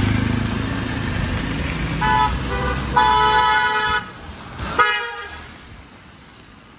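A vehicle horn honking in street traffic: two short toots about two seconds in, a longer toot of about a second, then one more short toot. A passing vehicle's engine rumbles at the start.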